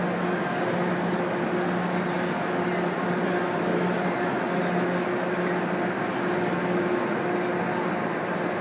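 Indoor skydiving vertical wind tunnel running: a steady rush of high-speed air from its fans, with an even low hum under it.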